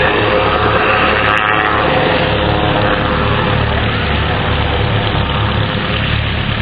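Calidus autogyro's engine and pusher propeller droning steadily as it flies a display.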